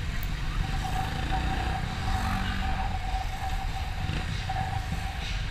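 Ride noise from a motorcycle moving slowly in traffic: engine rumble and wind on the bike-mounted camera microphone. A steady high tone runs alongside, dropping out briefly near the start.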